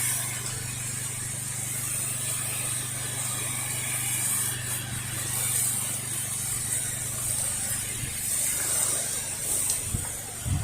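Steady hiss of a soft-wash spray nozzle putting the bleach mix onto house siding, over the low steady hum of the washing rig's motor. The hum fades in the last couple of seconds.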